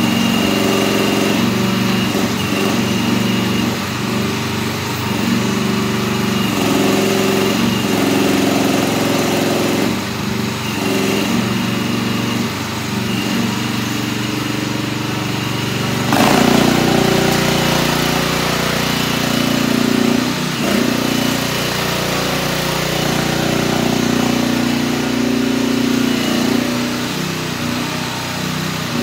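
The 13.5 HP Briggs & Stratton engine of a MIVA VA08 mini excavator runs steadily while the boom, arm and tracks are worked. About halfway through the sound turns to a deeper, heavier hum.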